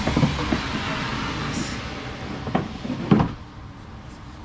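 Metal knocks and clunks as a rear shock absorber is worked free and lifted out of the wheel arch: a few knocks near the start, then two more around two and a half and three seconds in, the last the loudest.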